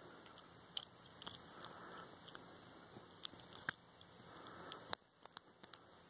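Faint, irregular small clicks and light scraping of a steel lock pick working the five brass pin tumblers of a Chateau C870 stainless-steel padlock, with a tension wrench in the keyway; the sharpest click comes about five seconds in.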